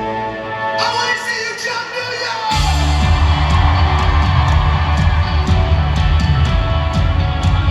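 Live rock band performing in concert: a singer holds a rising note over guitars and keyboards. About two and a half seconds in, the drums and bass come in hard and the full band plays on loud with a steady beat.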